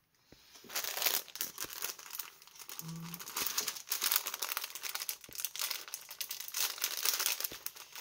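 Clear plastic packaging crinkling and crackling as it is handled and turned over, steady and irregular.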